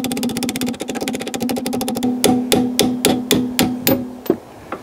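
Percussive background music: a fast, even tapping pattern over a held low note, then a run of evenly spaced drum hits that stops shortly before the end.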